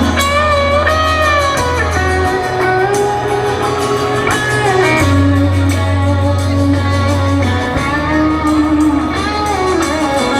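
Live rock band playing loudly, with guitar to the fore over steady bass notes that change every couple of seconds.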